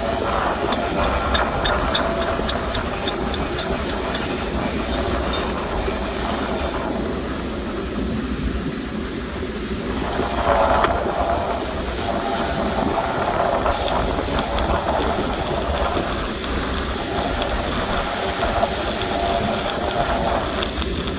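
Stick (SMAW) welding arc crackling and sizzling steadily, with a constant low hum underneath.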